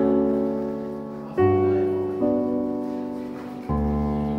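Background music: held chords that fade away, with a new chord struck about every second or so.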